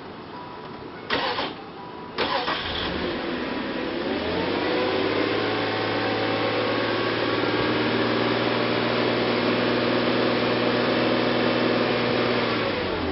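Nissan Maxima engine cranked by the starter, catching about four seconds in, then idling steadily before it is switched off just before the end.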